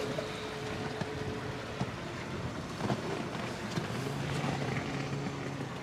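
Canal tour boat's motor running steadily, under a steady haze of wind and water noise.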